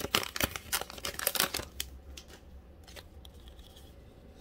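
Foil wrapper of an Upper Deck hockey card pack crinkling and tearing as it is opened. There is a dense crackle for about the first second and a half, then a few light clicks and rustles as the cards are slid out.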